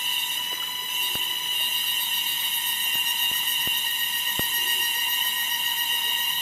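A steady high-pitched electronic tone with overtones, with about six light clicks of laptop plastic and small parts being handled as the palm rest comes off.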